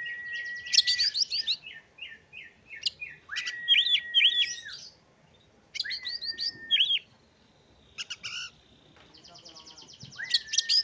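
Oriental magpie-robin singing. Its phrases are clear whistles about a second long, each joined by quick higher chirps, repeating every few seconds with short pauses. A buzzy rattling trill comes shortly before the end.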